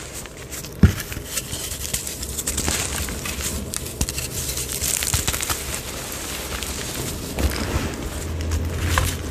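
Hands crumbling and squeezing a block of gym chalk into powder: a continuous dry crunching with many fine crackles. There is one dull thump just under a second in.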